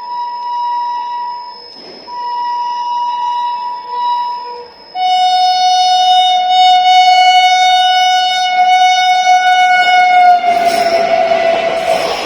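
Electric locomotive's sharp-toned horn sounding as the express runs through the station without stopping: two shorter blasts, then from about five seconds in a much louder long blast. The long blast drops slightly in pitch near the end as the locomotive passes, and the rushing noise of the train running through comes in.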